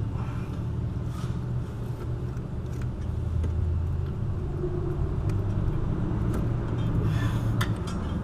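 Low, steady mechanical rumble with a few light clicks and a short scraping noise about seven seconds in.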